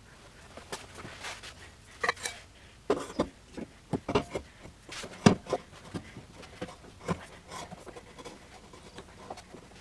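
Irregular knocks, clicks and clinks of hand tools and metal car parts being handled. They are densest and loudest in the middle, with the sharpest knock about five seconds in.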